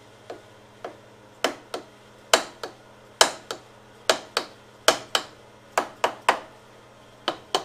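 Repeated sharp taps, mostly in pairs, about one pair a second, from tool work breaking a stuck cylinder head bolt loose on a Briggs & Stratton Intech engine.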